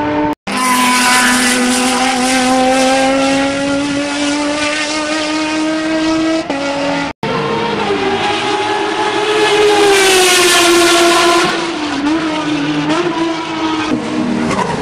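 Renault Megane Trophy race car's 3.5-litre V6 running at high revs, its pitch climbing slowly as the car accelerates. The sound cuts off abruptly twice, about half a second and about seven seconds in. After the second cut the pitch drops, then rises again and grows louder as the car comes close, and near the end it wavers with short throttle blips.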